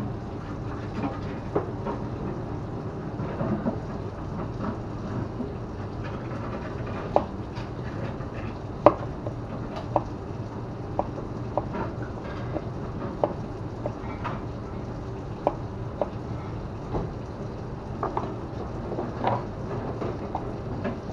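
Knife with an M390 steel blade cutting meat and potatoes on a plastic cutting board: irregular sharp knocks of the blade striking the board, over a steady background hum.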